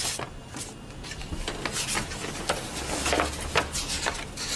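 A sheet of paper rustling and crackling as it is unfolded and turned over in the hands, in many short crackles.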